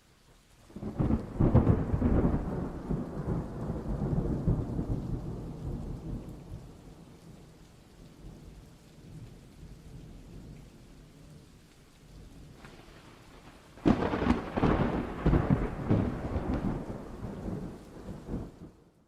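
Thunderstorm: rain falling steadily with two peals of thunder. The first rumbles in about a second in and dies away over several seconds; the second breaks suddenly near the end and rumbles on for about five seconds.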